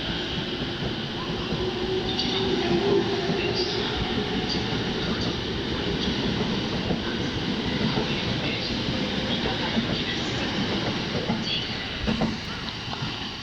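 JR East E231-500 series electric commuter train running along the station platform: a steady rumble of wheels on rail with scattered clicks over the rail joints, fading somewhat near the end.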